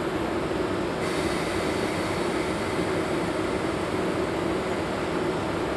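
Electric freight locomotive standing with its cooling blowers running: a steady hum under a constant hiss, the hiss growing a little brighter about a second in.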